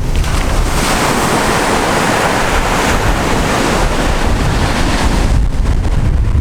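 Ocean surf washing onto the shore, with wind buffeting the microphone in a steady low rumble. A wave's wash swells about a second in and eases off about five seconds in.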